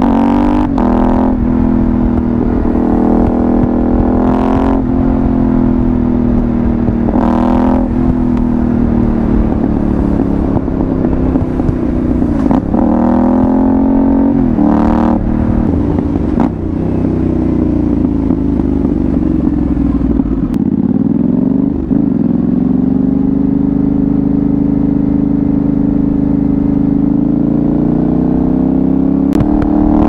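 Yamaha Ténéré 700's 689 cc CP2 parallel-twin engine, heard through an aftermarket Dominator GP1 exhaust while riding. It revs up through several quick upshifts, each a brief break in the exhaust note, in the first half. Then the revs fall away, pick up again and hold steady, rising once more near the end.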